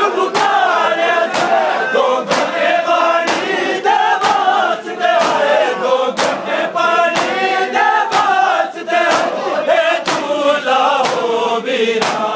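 A crowd of men chanting a mourning lament in unison while beating their chests in matam. The hand-on-chest slaps land in a steady rhythm about once a second under the singing.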